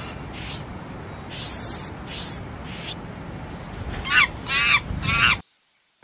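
Birds calling over a steady outdoor hiss: several quick high chirps that fall in pitch, then three stronger falling calls near the end, before the sound cuts off suddenly.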